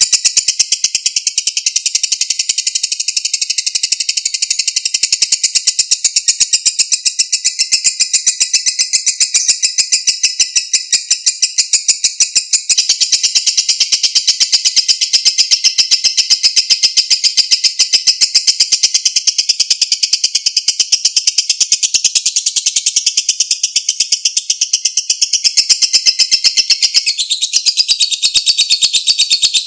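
Lovebird's long 'ngekek': a loud, high-pitched, rapid chattering trill without a break, shifting slightly in pitch about halfway through and again near the end.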